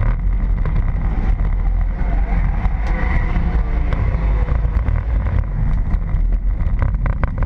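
Pontiac Sunfire enduro race car's engine and road noise heard from inside the cabin as it drives at low speed, with a run of rattling knocks near the end.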